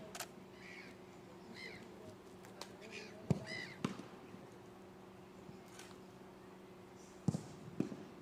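Short, harsh crow-like bird calls, repeated in loose bunches over a steady low hum, with a few sharp thumps around the middle and near the end.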